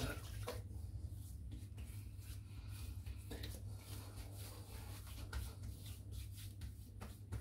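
Hands rubbing a face serum into the skin of the face, heard as a string of short, soft brushing and rubbing strokes over a steady low hum.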